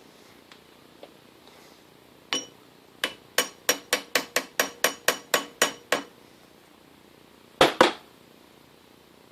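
Light hammer taps on a metal gear being seated square in a lathe chuck: one tap, then a quick run of about a dozen taps at about four a second, each ringing briefly, and two more taps close together near the end.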